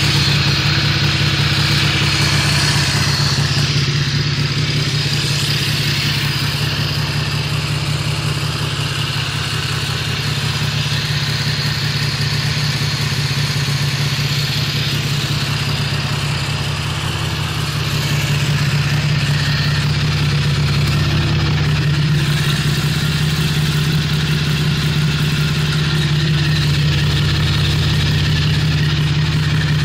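2001 Indian Scout's air-cooled V-twin idling steadily, still warming up after a cold start.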